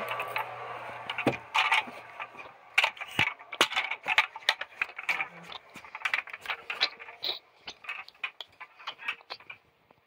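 Irregular clicks, taps and rustling of handling noise on a phone's microphone as it is carried about, thinning out near the end.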